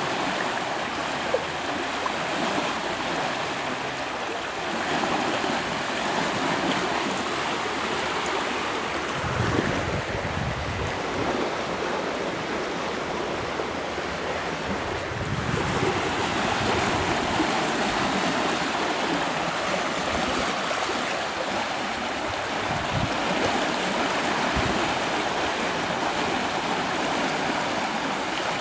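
Swollen, fast-flowing floodwater rushing steadily under a footbridge. For a few seconds in the middle, wind buffets the microphone and the rush of water drops back.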